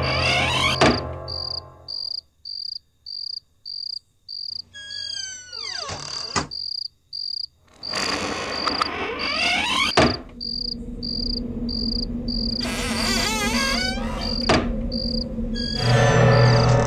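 Crickets chirping in steady pulses about twice a second, as night ambience under horror sound effects: rising sweeps, a descending glide, several sharp hits, and a low drone swelling near the end.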